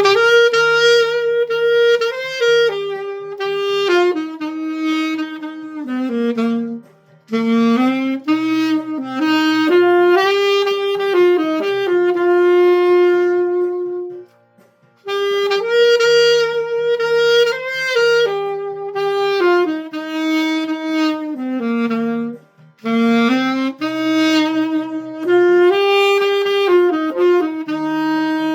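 Alto saxophone, a Selmer Mark VI with a metal mouthpiece and synthetic reed, playing a slow melody dry with no added reverb, in phrases with short breaths between, over a quiet backing track.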